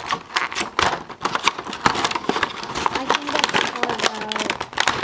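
Plastic blister pack and its cardboard backing being torn and pried open by hand, in a run of irregular crackles and crinkles.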